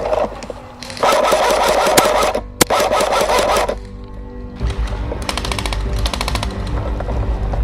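Background music: a loud, dense passage, then from about halfway a steady beat with heavy bass.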